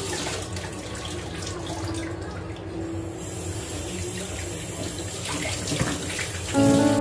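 Tap water running into a kitchen sink as things are rinsed by hand, with light clinks of dishes. Piano music comes in near the end.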